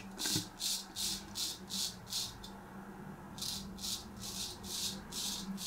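Straight razor, a Filarmonica-type Cruff 14, scraping through lathered stubble in short quick strokes, about three a second, with a brief pause partway through.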